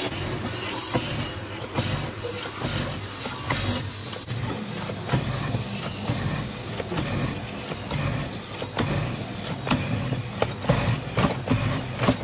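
Mortising machine running with a steady motor hum while its bit is fed into a wooden rail, with irregular knocks and cutting noises as it chews out the wood.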